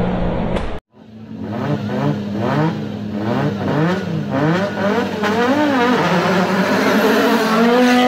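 Loud electronic music cuts off under a second in. After a brief silence, a rally car's engine fades in, its revs rising and falling about twice a second.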